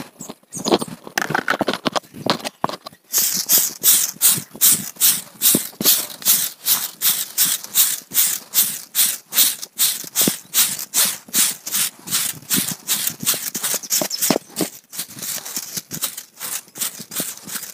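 Broom sweeping the ground in quick, even scraping strokes, about three a second, starting about three seconds in.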